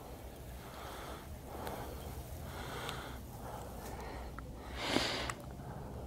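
A person's heavy breathing close to the microphone, about one breath a second, with a louder breath about five seconds in.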